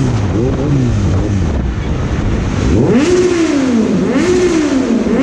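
Motorcycle engine revved hard and repeatedly, its pitch climbing sharply and falling back several times.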